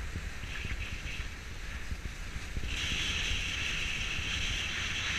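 Skis sliding and scraping over hard-packed snow in short hissing patches, then one longer scrape starting about halfway through, over a steady rumble of wind on the microphone.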